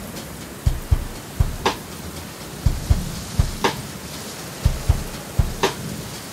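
Steady rain ambience over a slow drum beat: low kick-drum thumps in a repeating pattern, with a sharper snare-like hit about every two seconds.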